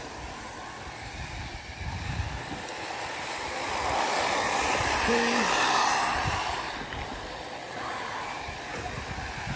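Arrma Typhon 6S electric RC buggies racing on a dirt track: a rush of motors and tyres on dirt that swells as the cars pass close about four seconds in, then fades away.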